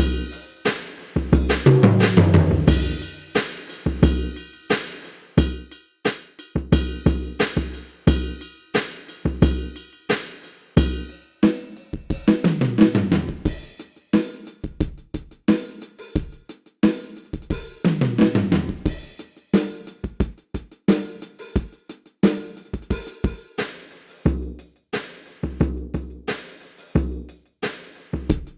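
Ketron SD90 SF2 sampled drum kit playing a steady groove of kick, snare, hi-hat and cymbals. Three times, about 1.5, 12 and 18 seconds in, it plays a fill that falls in pitch.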